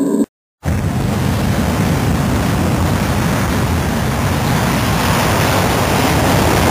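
A steady, even rushing noise with a deep rumble underneath. It starts after a brief moment of silence about half a second in.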